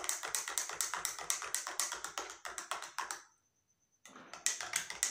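A spoon clinking rapidly against the inside of a drinking glass as it stirs talcum powder into water, about five or six clinks a second. The clinking breaks off for under a second about three seconds in, then resumes.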